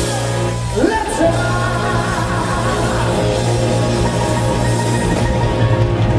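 Live rock band (electric guitar, bass guitar, drum kit and keyboard) playing loudly, the whole band coming back in together at once at the start, with the lead electric guitar bending notes over sustained chords and a steady bass line.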